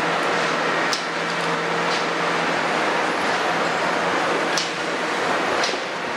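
Kobelco 350 excavator's six-cylinder Hino diesel engine running as it swings a loaded bucket of soil toward a dump truck, a steady working noise with a few short sharp knocks.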